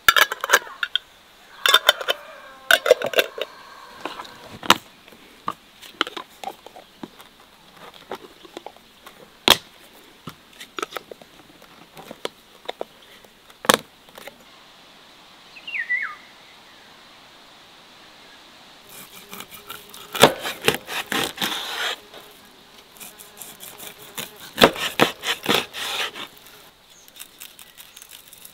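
Metal twist-off lids being fitted and screwed onto large glass jars: scattered sharp clinks and taps of lid on glass and jar on a wooden table, then two spells of quick rattling clicks in the second half as the lids are turned tight.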